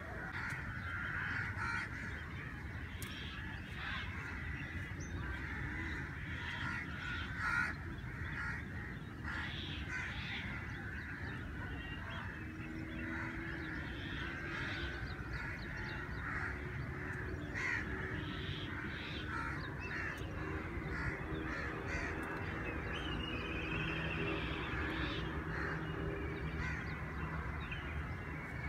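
Dawn chorus of many birds calling at once, short calls overlapping throughout, over a low steady rumble.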